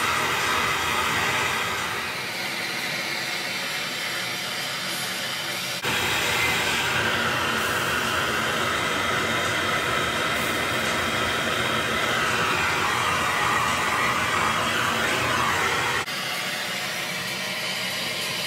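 Plumber's gas torch burning steadily while heating a copper pipe joint for soldering, a continuous rushing noise of the flame. The noise jumps louder abruptly about six seconds in and drops back abruptly about sixteen seconds in.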